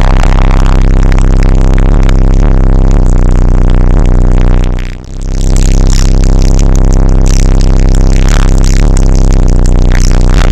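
Bass-heavy music played at full loudness through a high-power car subwoofer system, deep bass dominating and the sound pushed hard into distortion, with a short dip in loudness about halfway through.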